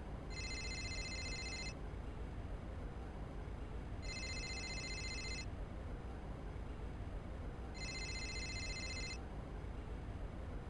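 Incoming-call phone ringtone from an Amiga 500 demo soundtrack: three rings, each about a second and a half long and a few seconds apart, every ring a bright chord of high steady electronic tones. A steady low hiss and hum lies underneath.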